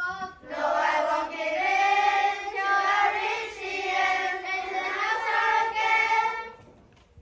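A group of children singing together in unison, holding their notes, for about six seconds before stopping near the end.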